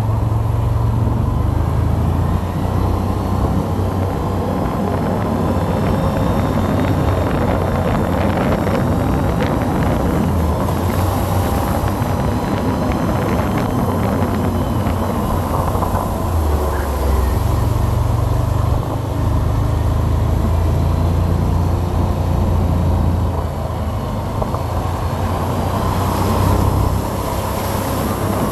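Quad bike (ATV) engine running under way over a rough, muddy dirt road, its low drone changing pitch in steps as the throttle changes, with scattered knocks and rattles from the bumpy ride.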